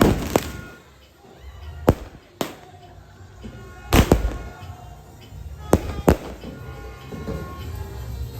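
Fireworks exploding in a scattered series of sharp bangs, about eight in all, several coming in close pairs, with the loudest pair about four seconds in. Faint music plays underneath.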